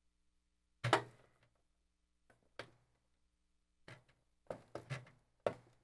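A string of short, sharp clicks and knocks, the loudest about a second in: a sleeved 24-pin power cable being handled, pushed through the case's grommets and plugged into a fully-modular power supply.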